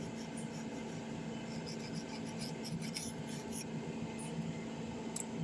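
Old adhesive being scraped off a Samsung Galaxy A03s phone: a run of short scratchy strokes for about the first three and a half seconds, then only an occasional scratch, over a steady low hum.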